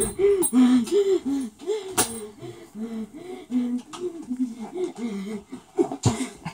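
A child laughing in a long run of wheezy, rising-and-falling bursts, about two to three a second, with a couple of brief sharp clicks.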